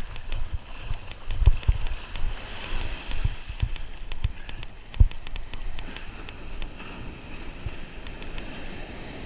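Wind buffeting the microphone over surf washing on the shore, with low thumps, the loudest about five seconds in. A rapid run of sharp ticks goes through most of it and stops a couple of seconds before the end.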